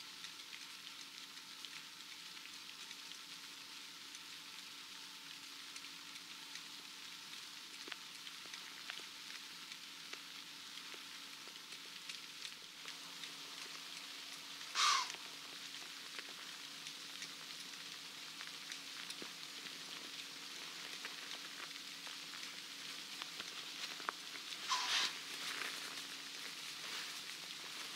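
Faint, steady hiss of open-field evening ambience, broken twice, about 15 s and 25 s in, by a short call that falls steeply in pitch.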